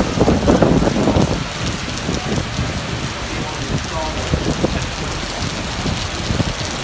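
Heavy rain pouring down on a flooded street, a dense steady hiss, with a louder rush of water in the first second or so.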